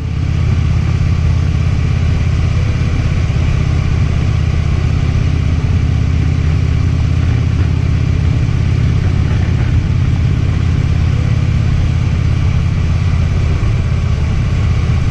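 Harley-Davidson motorcycle's V-twin engine running steadily at an even, unchanging speed.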